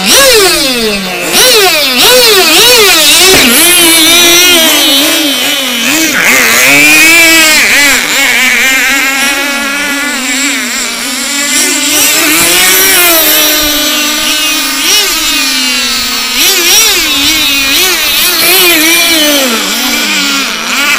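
Several outboard-engined boats racing together, their engines running at high pitch and repeatedly rising and falling as they throttle up and back off, several engine notes overlapping.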